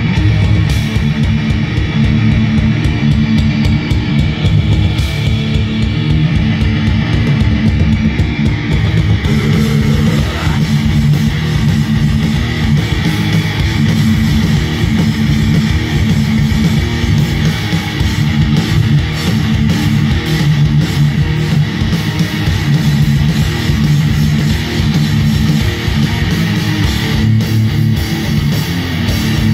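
Thrash metal band playing live: distorted electric guitars, bass guitar and drums, loud and dense with fast drum hits, and one rising pitch glide about ten seconds in.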